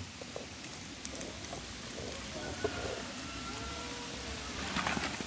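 Hands mixing ground chilli paste into raw snakehead murrel fish steaks: a faint, wet, crackly squelching that grows a little louder near the end.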